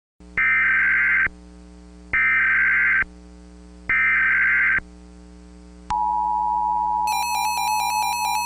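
Emergency Alert System SAME header: three short bursts of warbling data squawk, each about a second long, with a low steady drone beneath. About six seconds in, a steady single-pitch NOAA Weather Radio warning alarm tone starts, and a rapid high-pitched pulsing joins it near the end.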